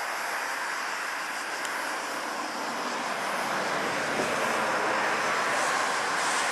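Jet engines of an Airbus A320 airliner during its landing roll after touchdown: a steady rushing noise that grows slightly louder in the second half.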